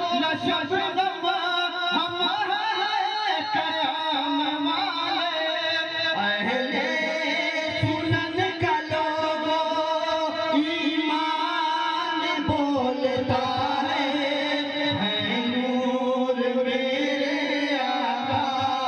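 Male voices singing a naat, an Urdu devotional poem, into microphones, amplified through a public-address system, with melodic phrases and long held notes.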